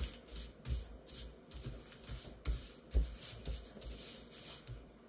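Construction paper being handled and rubbed on a tabletop: irregular rustling strokes with a few soft taps.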